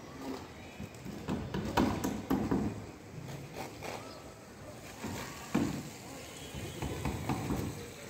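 Building-site sounds: scattered knocks and thuds, several sharp ones, with people's voices among them.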